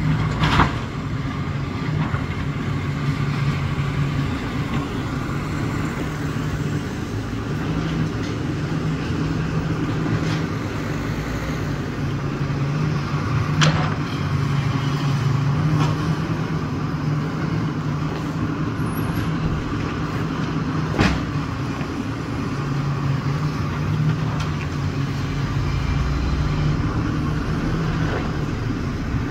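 Komatsu PC360LC hydraulic excavator's diesel engine running steadily, its note strengthening and easing as the load changes, with a few sharp knocks of demolition work.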